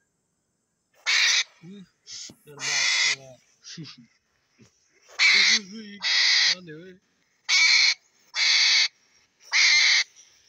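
A hedgehog hissing defensively while being handled: seven short, hoarse hisses of about half a second each, coming in irregular bursts.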